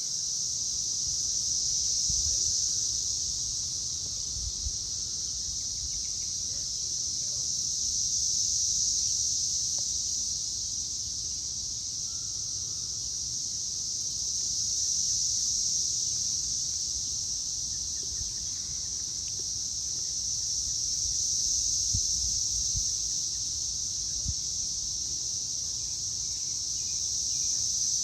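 A loud chorus of cicadas: a steady high buzzing that swells and fades in slow waves about every six or seven seconds.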